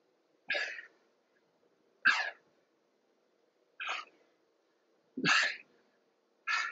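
A person's forceful, sharp exhales, one with each repetition of a bear push-up. Five short breath bursts come at a steady pace of about one every second and a half.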